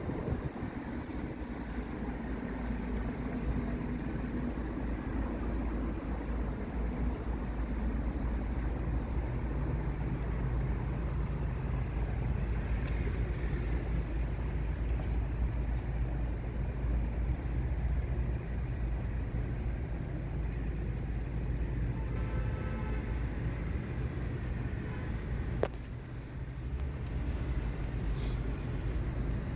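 Steady low outdoor rumble, like distant road traffic or wind on the microphone, with a single sharp click about three-quarters of the way through.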